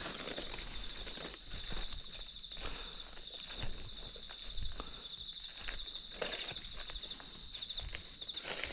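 Footsteps rustling on the forest floor, irregular and uneven, under a steady high-pitched insect drone that pulses in quick beats.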